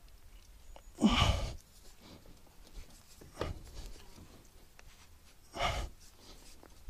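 A man breathing out hard twice, about a second in and near the end, with a small knock in between, while straining on a grease gun that will not push grease into a clogged fitting.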